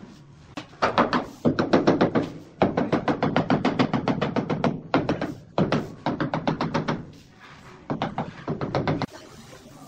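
Rapid tapping of a gloved hand on a large ceramic wall tile, about ten quick knocks a second, in half a dozen bursts with short pauses between them.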